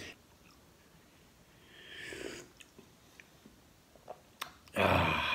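A man sipping a hot drink from a small porcelain cup: a soft sip about two seconds in, a few faint clicks, then a louder breathy slurp near the end.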